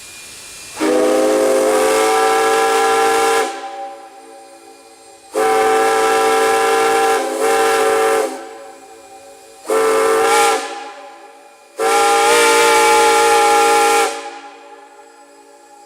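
Steam whistle blown in five blasts: a long one, a second long one that breaks into a short one, another short one, then a final long blast. Each blast bends up slightly in pitch as it opens, and steam hisses faintly between the blasts.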